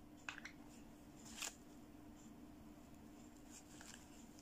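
Faint handling of a plastic fashion doll: a couple of small clicks, then a short rustle about a second and a half in and a few light ticks later, over a steady low hum.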